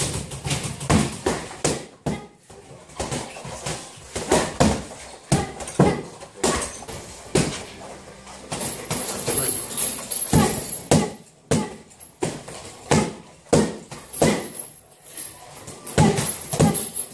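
Boxing gloves smacking padded focus mitts: sharp slaps in uneven combinations, often one or two a second, some in quick pairs.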